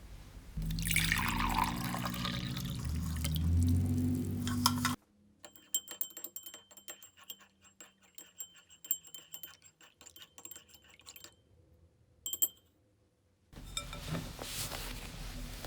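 Liquid being poured into a glass container, loud for about four seconds, then stopping suddenly. Faint scattered clicks and taps follow, and a steady noisier sound comes in near the end.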